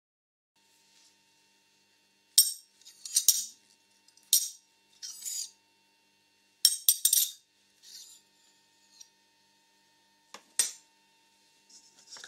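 Sharp metal clinks and short scrapes of a spanner being fitted to and turned on a nut of a bench rig, in a quick string of about eight knocks, with two more clinks a few seconds later as a steel bowl is handled.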